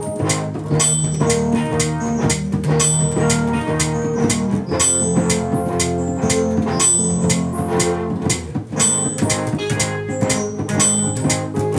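Band music with a steady drum beat, guitar and bass: a song being played through.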